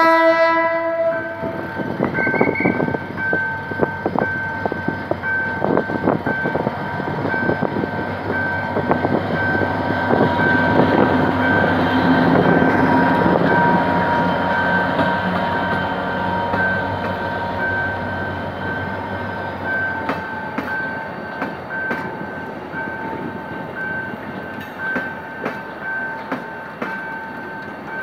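A GM GT22 CW-2 diesel-electric locomotive, with a 12-cylinder two-stroke EMD 645 engine, ends a short horn blast about a second in, then runs past close by with its engine rumbling and its wheels clattering over the crossing rails. The passenger coaches follow with rail clatter that fades toward the end. A level-crossing warning bell pulses evenly throughout.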